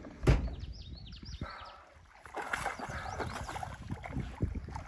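Sounds of a small fishing boat on the water: one sharp knock just after the start, then faint water sloshing and small knocks. A quick run of high chirping notes comes in the first second or so.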